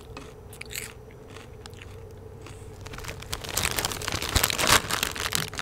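Crunchy taco-flavour Doritos tortilla chips being chewed, with sparse crackles. About three and a half seconds in, a denser, louder crackling starts as the chip bag is handled.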